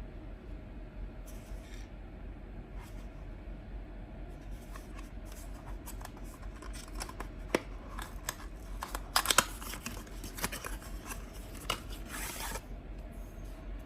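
Cardboard and plastic packaging being handled and opened by hand: scattered taps and clicks with crinkly, scratchy rustling. This starts a few seconds in and is busiest and loudest in the second half.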